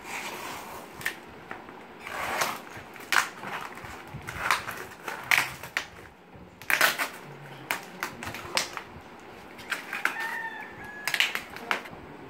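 Scissors snipping and hands working a flattened cardboard box with packing tape on it: irregular crackles, scrapes and short rips, with sharp clicks scattered throughout.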